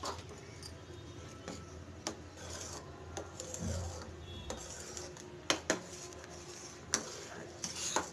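A metal spatula stirring curdling milk in a steel pot: soft scraping, with several sharp clinks of metal on metal, two of them in quick succession about five and a half seconds in. The milk is splitting into chhena and whey after alum was added.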